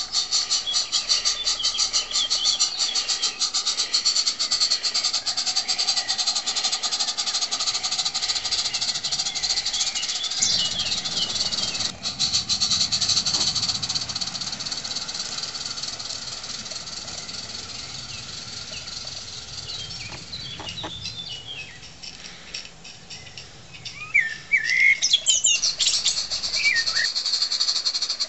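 A live-steam garden-railway locomotive (gauge IIm) chuffing in a fast, even run of exhaust beats that fades out about twelve seconds in. Birds chirp over it several times, and the chuffing picks up again near the end.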